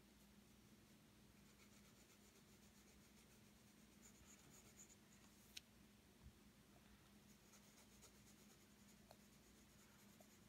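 Faint scratching of a graphite pencil on paper, drawing in short runs of strokes, with one light tick about halfway through.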